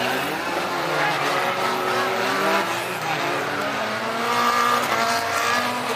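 Several fun-car dirt-track race car engines revving at once, their pitches rising and falling as the drivers accelerate and lift off around the track.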